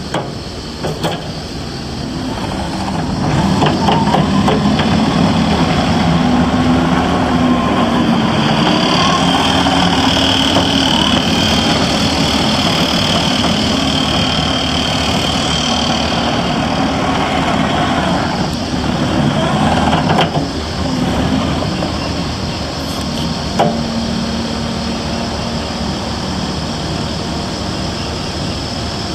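Case TR340 skid steer's diesel engine running steadily; it gets louder about three to four seconds in as it is throttled up. A steady high whine rides over the engine for several seconds in the middle, and there are a few brief clicks.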